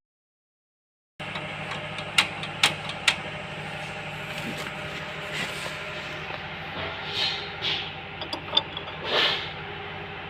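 A steady engine running, with several sharp clicks, like tools on metal, about two to three seconds in. The first second or so is silent.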